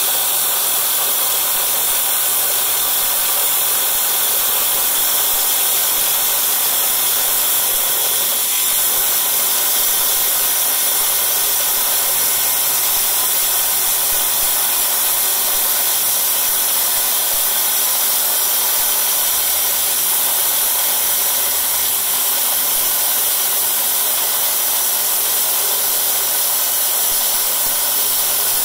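Electric bench stone saw running and cutting through a rough stone held by hand on a wet table: a steady, hissing grind.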